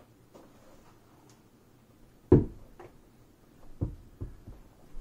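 One loud thump about two seconds in, then a few lighter knocks, from objects being tossed, caught and handled.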